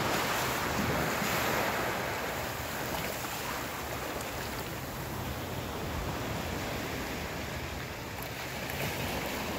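Ocean surf washing on a beach: a steady rush of noise, a little louder over the first two seconds, with a low rumble of wind on the microphone.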